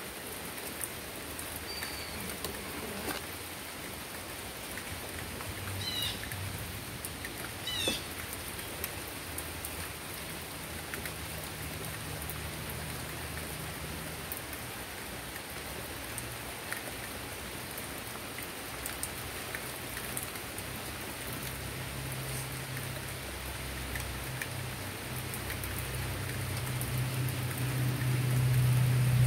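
Steady rain falling on a wooden deck and trees, with scattered small ticks of drops. A bird chirps briefly a few times early on, and a low hum grows louder near the end.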